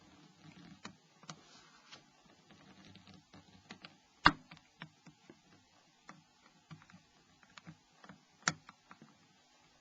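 Small clicks and taps of a Nokia 5500D phone's cover being levered apart with a plastic opening tool, with two sharp snaps, about four seconds in and near the end, as the cover's catches unlock.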